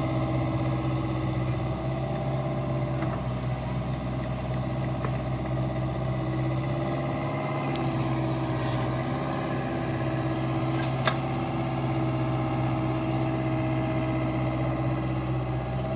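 Caterpillar 304E mini excavator's diesel engine running steadily under working load while the arm digs, with a few faint clicks along the way.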